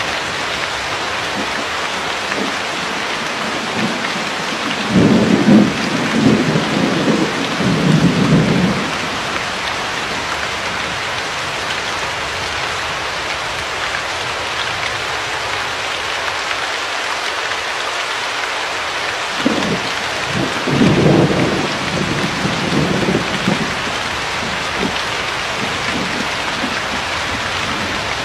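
Steady heavy rain hissing, with two rolls of thunder rumbling low: one about five seconds in lasting several seconds, and another about twenty seconds in.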